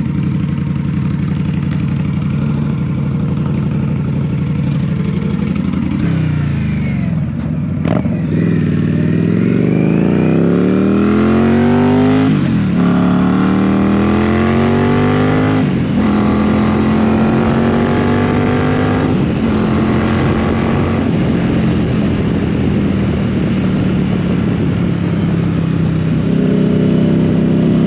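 Cruiser motorcycle engine, heard from the rider's seat, running at a steady low speed for several seconds. It then pulls away and accelerates up through the gears, the pitch climbing and dropping back at each shift about four times, before holding steady at cruising speed.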